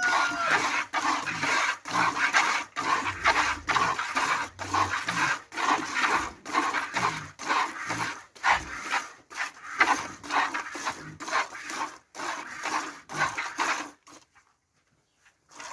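Streams of milk squirting from a cow's teats into a plastic bucket during hand milking, about two hissing squirts a second in a steady rhythm. The squirting stops about fourteen seconds in.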